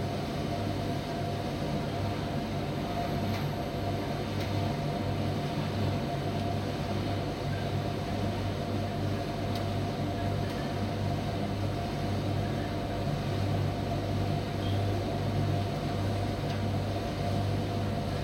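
Primus commercial tumble dryer running: a steady mechanical hum from its motor and fan, with a few faint ticks.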